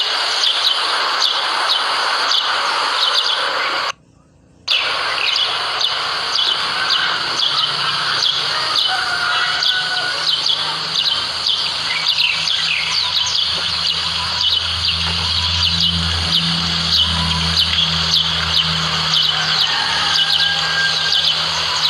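White-eyes chirping: a steady stream of short, high chirps that cuts out briefly about four seconds in. A low steady hum joins about a third of the way through.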